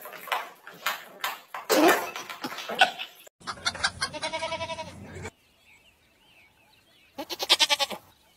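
A goat bleating, one short wavering bleat about seven seconds in, after a few scattered knocks and short noises in the first seconds.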